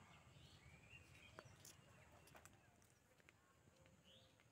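Near silence: faint rural outdoor ambience with a few distant bird chirps and some soft clicks in the first half.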